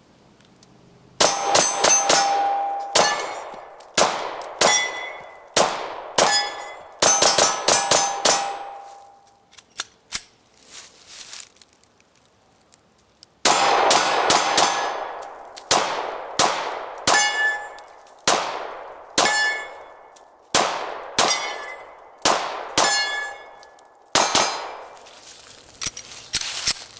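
Glock 22 pistol firing .40 S&W rounds in two quick strings of shots at steel targets, with a pause of about four seconds between the strings. Each shot is followed by the ringing clang of a steel plate being hit.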